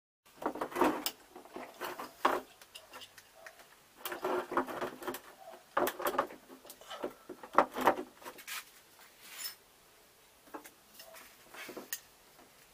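Irregular knocks, clicks and rattles of hands and a screwdriver working on the terminals and plastic frame of a wall-mounted ultracapacitor bank. They come in several clusters and thin out to a few scattered clicks in the last few seconds.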